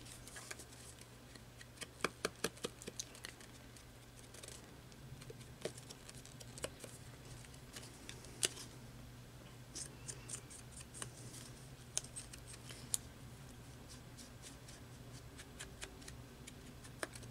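Faint handling sounds of inking paper edges: a foam sponge cube dabbed on a black ink pad and worked along the edges of card cutouts, giving light taps, scuffs and paper crinkles, with a quick run of taps about two seconds in. A faint steady low hum lies underneath.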